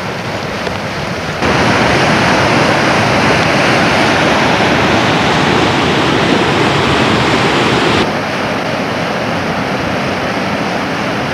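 River rapids rushing over rocks: a steady, loud wash of water noise that gets suddenly louder about a second and a half in and drops back down about eight seconds in.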